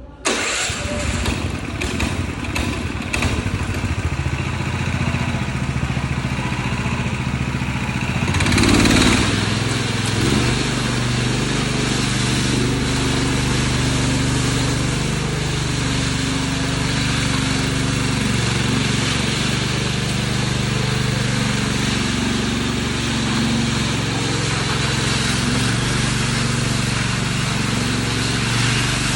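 Ride-on double power trowel's engine running, with a few clicks in the first seconds; about eight seconds in it surges louder, then runs steady at a higher level.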